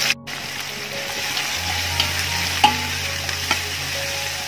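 Sliced onions sizzling in hot oil in a large metal pot as they are stirred, with a few sharp clicks of the ladle against the pot.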